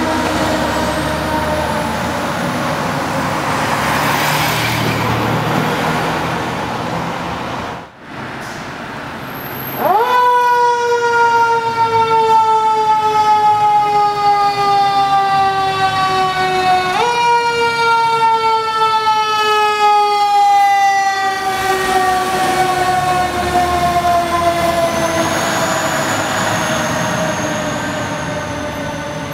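Fire engine siren wailing. It falls in pitch, breaks off briefly about eight seconds in, then twice jumps sharply up in pitch and glides slowly back down. Truck engine noise runs underneath.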